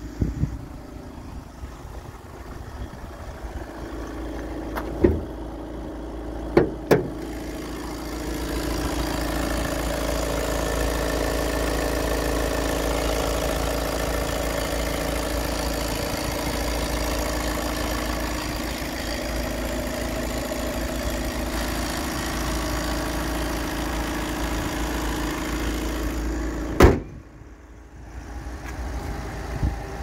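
Volkswagen Crafter 2.0 TDI four-cylinder diesel idling steadily, louder from about eight seconds in. There are a few light clicks before that and a single loud slam near the end.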